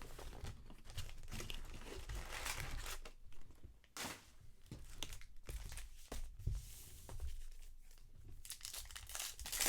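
Trading card pack wrappers being torn open and crinkled, with irregular crackling of the wrappers being handled.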